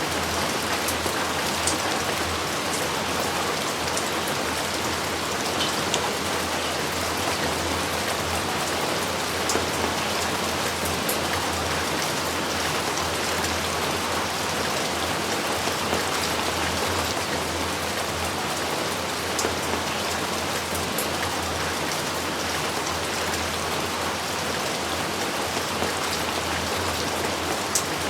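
Steady heavy rain falling, a dense even hiss with separate drops ticking now and then.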